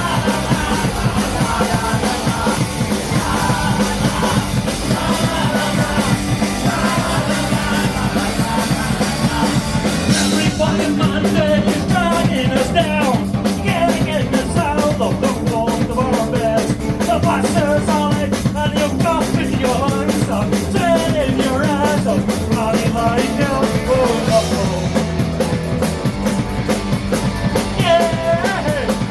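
Live rock band playing a full-band song, with sung vocals over the guitars and drums. The singing stands out from about ten seconds in.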